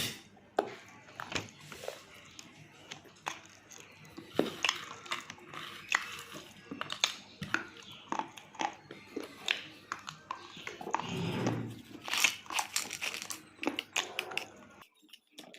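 Close-up biting and chewing of a brittle, chalky mineral stick, giving sharp crunches and cracks at an irregular pace, with a denser stretch of chewing about eleven seconds in.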